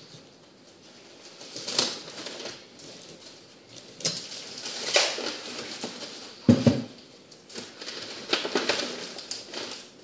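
Bubba Blade fillet knife slicing through a croaker on a plastic cutting board: several separate scraping, rasping strokes as the blade works along the fish. Past the middle comes one dull knock on the board, the loudest sound.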